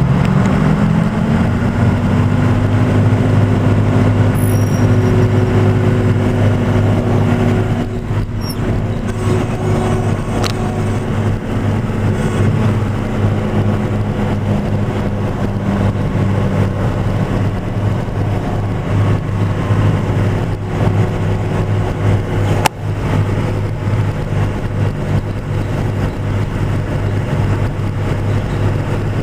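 John Deere 6800 tractor engine running steadily under load, driving a Pöttinger disc mower cutting grass, a continuous low drone whose pitch rises in the first couple of seconds and then holds. A single sharp click about three-quarters of the way through.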